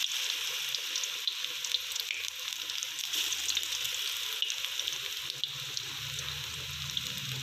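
Batter-coated potato slices deep-frying in hot oil in a kadai: a steady sizzle with scattered crackles and pops.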